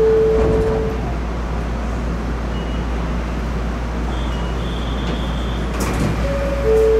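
Two-note electronic chime repeating on alternating notes, which stops about a second in and starts again near the end, over the steady hum of a stationary monorail car. Faint high beeps and a couple of sharp clicks come just before the chime resumes.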